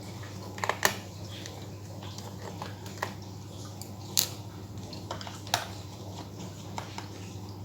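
Scattered small sharp clicks from a screwdriver working the screws of a laptop's bottom hard-disk cover, over a steady low hum.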